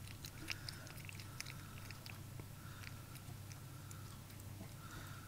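Cat chewing soft boiled endive with cheese sauce from a plastic bowl: a run of small quick clicks, thickest in the first second and a half and sparser after, over a faint low hum.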